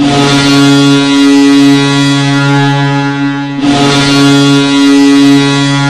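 Boston Bruins goal horn blasting, loud and steady, in two long blasts: the first cuts off about three and a half seconds in and the second starts at once. It is the horn sounded when the Bruins score a goal.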